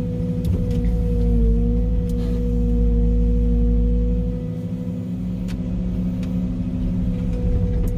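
Small excavator running under load, heard from inside the cab while the bucket digs: a low engine drone with a steady whine over it. The low rumble is heavier for the first four and a half seconds, then eases.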